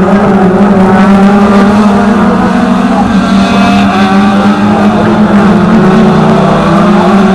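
Engines of several sedan race cars passing through a slow corner one after another, their revs gliding up and down as they go through the gears.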